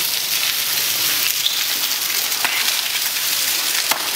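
Steady pattering hiss of water dripping and trickling inside a wet railway tunnel, with a couple of sharp clicks.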